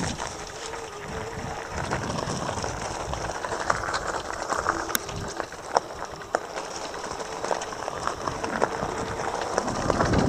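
Electric mountain bike riding over a rough dirt trail: a steady rush of tyre and ride noise with scattered sharp knocks and clicks as the bike jolts over the ground and kicks up dirt.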